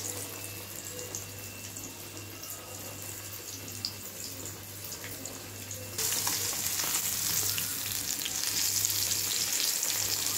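Semolina-coated pomfret frying in hot oil in an iron kadai, a steady sizzle. About six seconds in, as a steel spatula is pushed into the fish, the sizzle jumps louder and stays so.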